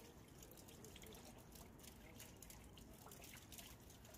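Near silence: faint room tone with scattered tiny ticks.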